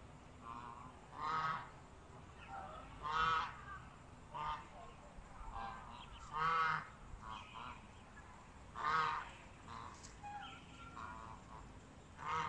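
Poultry calling: four loud calls of about half a second each, two to three seconds apart, with softer short calls in between.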